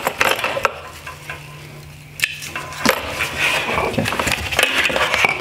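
Hard plastic headlight housing and its wiring harness being handled: scattered clicks, knocks and rattles of plastic and cable, with a quieter pause about a second in.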